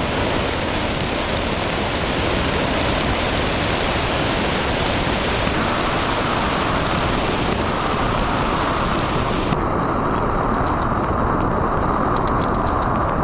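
Steady, loud rushing of storm wind and heavy rain from a tornado-producing thunderstorm. About nine and a half seconds in, the higher hiss drops off suddenly, leaving a duller roar.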